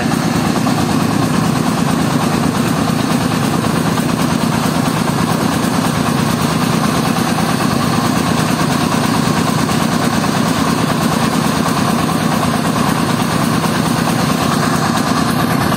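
Mobile rice mill on a three-wheeled vehicle running steadily: its engine and milling machinery make a loud, unbroken hum while the rice is being milled.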